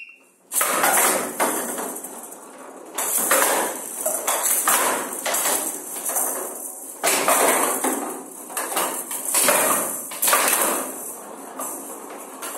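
Showdown rally: the ball, which holds small metal beads, rattles as it rolls and ricochets off the wooden table's side walls. Players strike it with their bats, giving sharp knocks every second or two from about half a second in.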